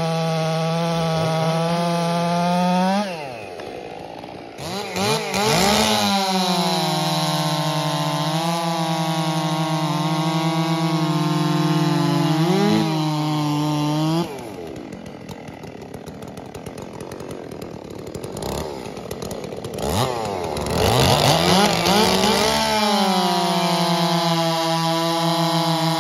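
Two-stroke chainsaws cutting through a log at full throttle, the engine note held steady under load. About three seconds in, the saw drops off and revs back up into the cut; through the middle there is a longer quieter spell of idling and throttle blips before two saws bite into the wood again near the end.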